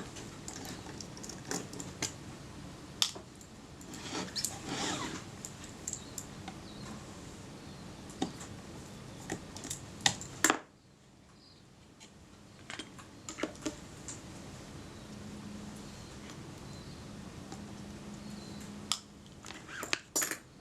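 Small clicks and taps of metal camera parts and tools being handled and set down on a workbench, scattered irregularly, with the background dropping away suddenly about ten seconds in.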